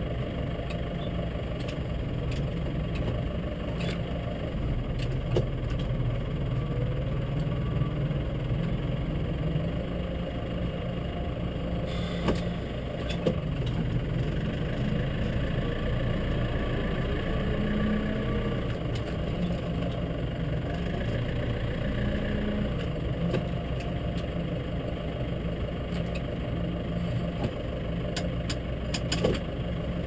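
Engine of a small snow-plough vehicle running steadily at low speed, its pitch rising a little for a few seconds around the middle, with a few light clicks and knocks.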